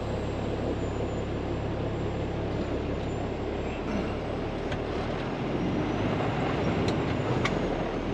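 Peterbilt 389 semi truck's diesel engine running steadily, heard from inside the cab, with a few light clicks in the second half.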